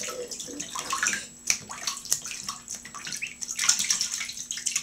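Ducklings paddling and dabbling in a bathtub of shallow water: light splashing and sloshing, with a few sharper splashes.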